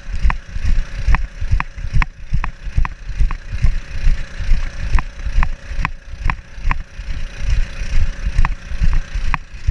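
A GoPro strapped to a dog, jostling as the dog moves: sharp knocks about three times a second over a low, uneven thumping. A faint steady hum stops about eight seconds in.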